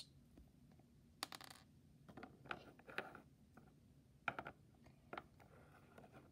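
Small plastic toy animal figurines being handled and set down on a wooden surface: a few faint, scattered taps and clicks.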